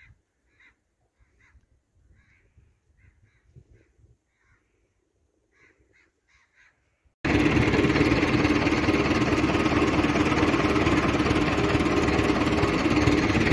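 Faint, scattered bird calls over near silence. About seven seconds in, a loud steady rushing noise cuts in abruptly and drowns them out.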